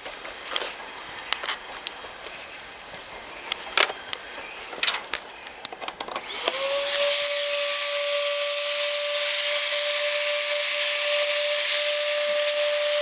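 Scattered handling knocks and clicks, then about six seconds in a repaired Pro ULV electric cold fogger is switched on for a test run: its blower motor spins up within a second to a steady high whine with a strong rush of air.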